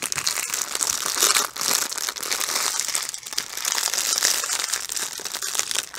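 Clear plastic wrapping around a packet of diamond-painting drill bags crinkling and crackling as it is handled and worked at by hand.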